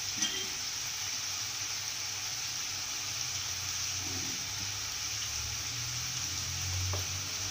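Chicken and raw plantain pieces cooking in a pan, a steady soft sizzle of the meat frying in its own released juices, with a low hum beneath it.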